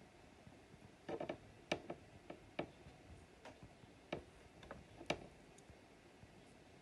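Irregular light clicks and taps on a clear plastic tub as wooden feeding tongs offer a hornworm to a pacman frog, about a dozen over the first five seconds.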